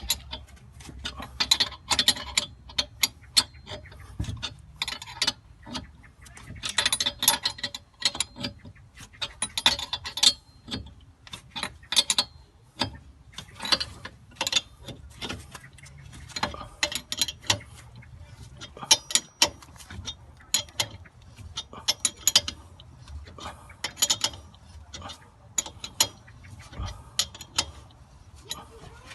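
Ratchet wrench clicking in repeated short strokes, in irregular bursts, as a stubborn front wheel hub is slowly worked off.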